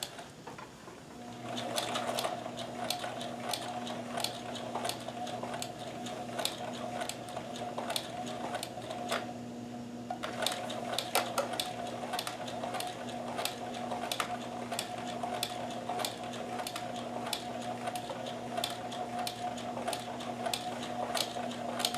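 Kenmore 158.1914 sewing machine stitching at low speed with a walking foot fitted, starting about a second in. The motor hums steadily under an even clicking of the needle and walking-foot mechanism, a few clicks a second.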